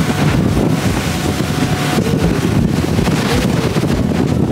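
Speedboat running fast across open water: a steady engine rumble under wind rushing and buffeting the microphone.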